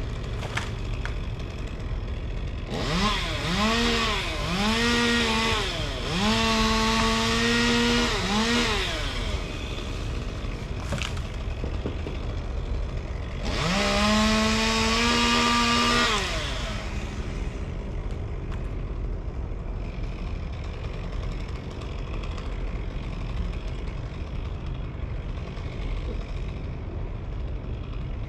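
Chainsaw revving in bursts: three short revs in the first several seconds, then a longer one about halfway through, quieter in between. A steady low rumble runs underneath.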